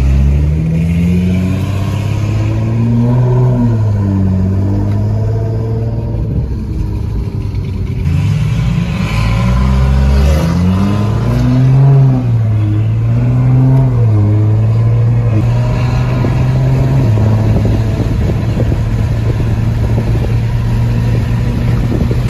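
High-horsepower cars accelerating hard at full throttle, engine pitch climbing and dropping back several times as the gears change, then holding steady near the end.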